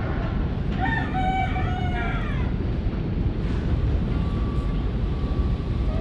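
A bird's single drawn-out call about a second in, lasting nearly two seconds, over a steady low rumble.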